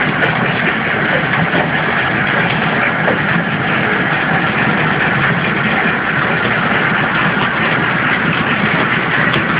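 Flow-wrap bread packing machine running steadily, a continuous mechanical hum and rattle.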